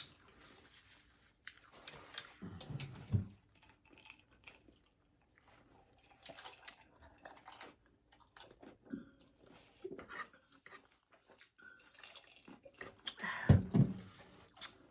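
Loaded nachos being chewed, with scattered crisp crunches of tortilla chips. There are louder bites about three seconds in and again near the end.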